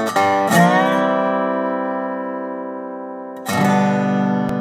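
Intro theme music on guitar. Pitches slide near the start, then a chord is struck about half a second in and left to ring and fade. A second chord is struck about three and a half seconds in.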